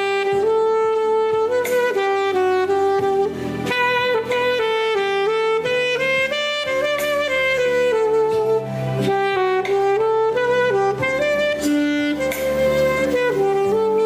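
Yamaha YAS-275 alto saxophone playing a melody of smoothly connected held notes.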